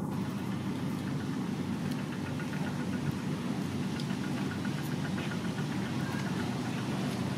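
A steady low rumble throughout, with faint small clicks and smacks of someone eating noodles off a fork.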